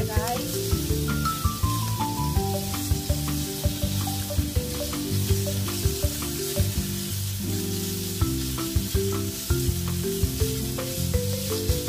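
Sliced pork and onion sizzling in a nonstick frying pan as they are stirred with chopsticks, with light clicks of the chopsticks against the pan, over background music.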